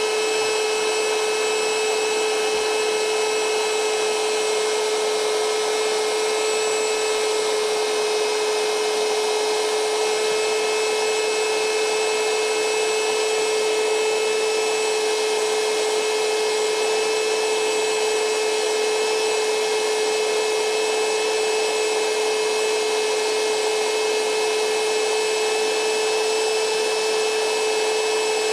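A small electric motor with a fan or blower running steadily: a constant hum over an even hiss, with no change in speed.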